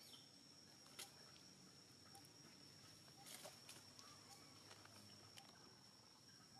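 Near silence: faint outdoor ambience with a steady, faint high-pitched tone, a soft click about a second in and a brief faint rustle a little after three seconds.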